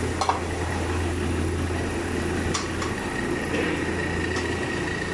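Steady low mechanical hum, with a faint high whine coming in about two seconds in and a few light clicks.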